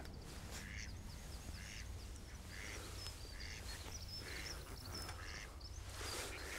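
Ducks quacking repeatedly, about once a second, with faint high twittering of small birds over them.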